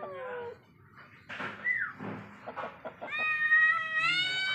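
Calico cat meowing: a falling meow trails off at the start, then a long, drawn-out meow begins about three seconds in.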